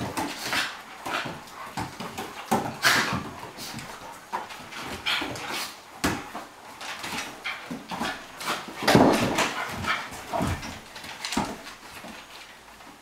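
A flat-coated retriever and a cairn terrier play-fighting, making a run of short, irregular dog noises with whimpers and barks; the loudest comes about nine seconds in.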